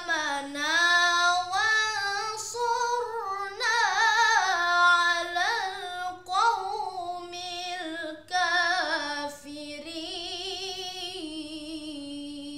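A boy's voice chanting Quran recitation (tilawah) in Arabic, melodic phrases with ornamented, wavering pitch broken by short breath pauses. The last phrase settles into a long held note near the end.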